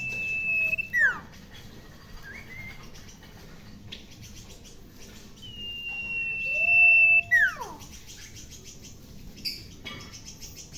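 A pet sirpu bird calling twice, shrill: each call is a long, steady high whistle that ends in a quick downward sweep, with a lower held note sounding under it. The second call, about halfway through, is the louder one.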